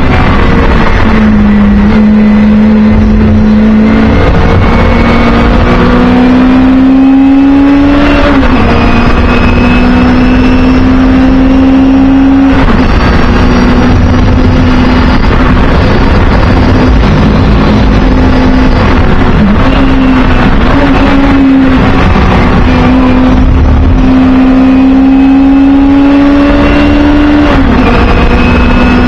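Singer Chamois race car's rear-mounted all-aluminium four-cylinder engine running hard, heard loud from inside the cabin. Its pitch climbs steadily and drops sharply a few times as the car goes through the lap.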